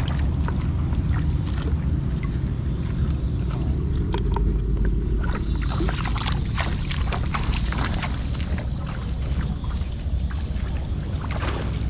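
Shallow water splashing and sloshing as bare feet wade through weedy pond shallows and a woven basket is worked in the water. There is a flurry of splashes around the middle, over a steady low rumble.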